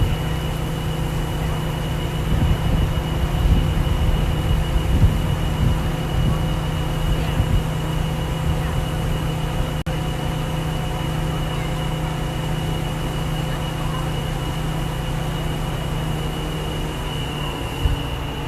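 Large crane's diesel engine running steadily at a constant speed, with a steady hum and a high whine over it, and gusts of wind on the microphone in the first few seconds.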